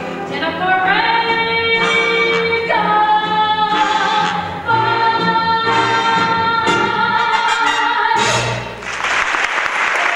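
A woman singing a Broadway show tune's closing held notes with musical accompaniment, ending about eight seconds in; an audience then starts applauding.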